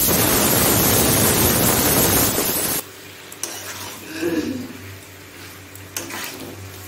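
Mutton and potato curry frying and being stirred with a metal spatula in a non-stick kadai, at the kosha stage where the meat is browned in the spice paste. A loud sizzle cuts off abruptly about three seconds in, leaving quieter scrapes and clicks of the spatula against the pan.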